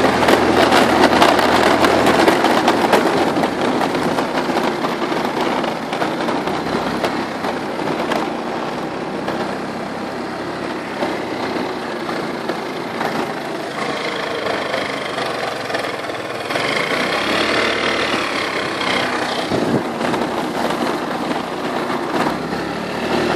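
A small motor scooter's engine running while riding along a rough gravel track, mixed with steady wind and tyre noise.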